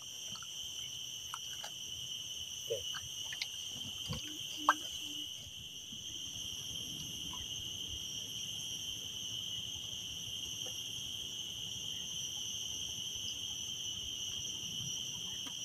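A steady, unbroken high-pitched insect chorus, with a few faint knocks and clicks scattered over it.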